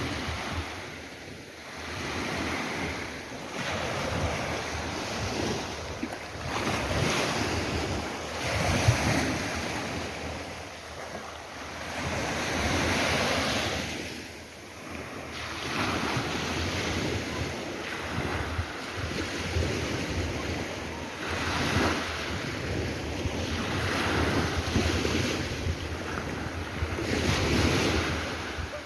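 Sea waves breaking and washing up on the shore, swelling and falling back every few seconds, with wind rumbling on the microphone.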